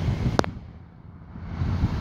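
Wind buffeting the microphone as a low rumble, with one sharp click about half a second in. The sound then drops away for about a second before the rumble returns.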